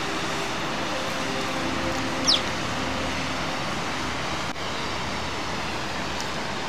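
Mountain stream rushing over boulders: a steady, even rush of water. A brief high falling whistle cuts through it about two seconds in.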